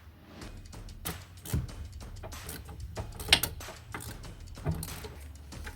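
A few scattered knocks and clinks of hand tools working at a car's wheel hub, the sharpest about three seconds in, over a steady low hum.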